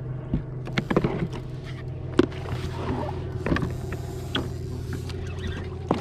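Jet ski engine idling steadily, with irregular clicks and knocks from the rod and spinning reel being worked.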